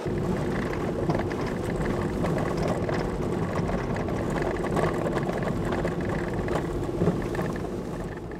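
Car driving, heard from inside the cabin: a steady engine and road rumble with a low hum, beginning to fade near the end.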